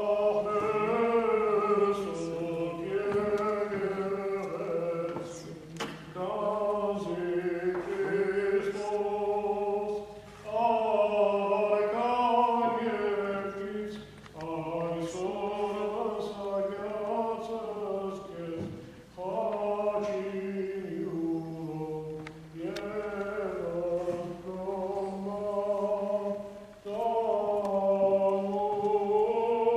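Voices chanting a slow melody in long held phrases, each a few seconds long with brief pauses for breath, over a steadier low note.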